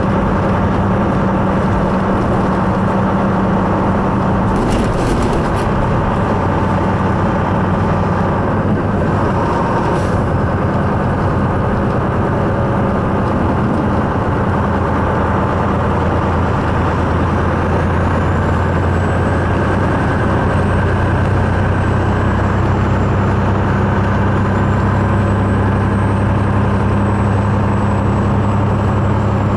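Semi-truck's diesel engine running steadily while cruising down the road, a low drone that stays even throughout, with tyre and road noise. A brief rattle sounds about five seconds in.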